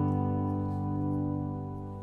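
Background music: a held chord ringing out and slowly fading away.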